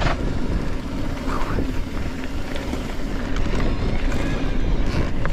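Wind buffeting the microphone and a steady low rumble as a bicycle runs fast down a lane.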